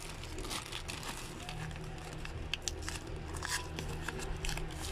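Clear plastic bag and thin wrapping paper being crinkled and unfolded by hand: an irregular run of crackles and rustles.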